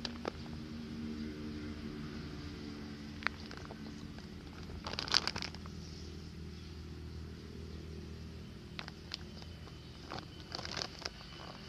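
Woven plastic fertilizer sack crinkling and rustling under a hand in short bursts, loudest about five seconds in and again near the end, over a steady low hum.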